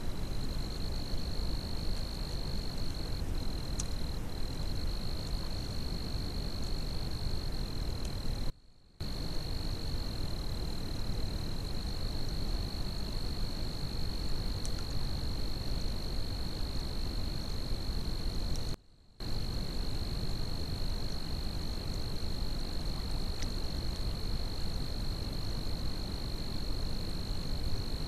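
Steady high-pitched insect trill, typical of a night chorus of crickets, over a constant hiss, cut off briefly twice by short silent gaps.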